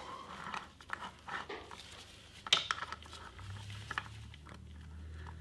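Socket wrench working bolts loose on a motorcycle's frame: scattered small metallic clicks and taps, with one sharper click about halfway through. A low steady hum comes in after about three seconds.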